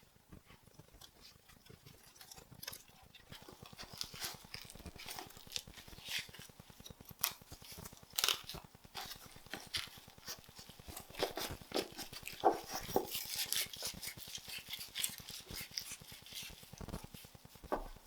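Dry seaweed and a bamboo rolling mat rustling and crackling as a gimbap roll is pressed and handled: faint irregular crisp clicks and crinkles that grow busier after the first few seconds.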